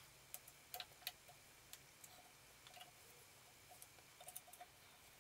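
Faint, scattered clicks and taps of small metal parts being handled inside the main casting of an Atlas 7B metal shaper, with a cluster of clicks about a second in and another near the end.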